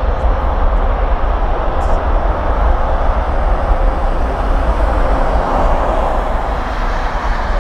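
Jet airliner engines running at takeoff power as the aircraft departs, heard as a steady, even rumble.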